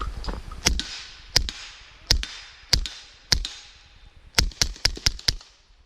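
Suppressed 9mm pistol shots from a Sig Sauer P226R fitted with a SilencerCo Osprey 45, firing 147-grain rounds. There are five shots about two-thirds of a second apart, then a rapid string of about six.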